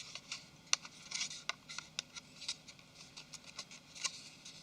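Light, irregular clicks and scratches of small smartphone parts being handled and pried, such as the metal discs on the rear cover being removed. The sound is faint, with a dozen or so sharp ticks scattered through it.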